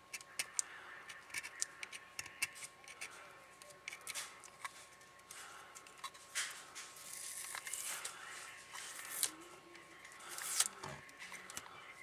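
Small screwdriver tip picking and scratching at the sticker and plastic back of a Baofeng UV-5R handheld radio: a run of light clicks with a few short scraping passes.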